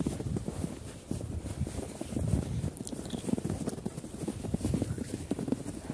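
Footsteps crunching in packed snow at walking pace, several people walking together.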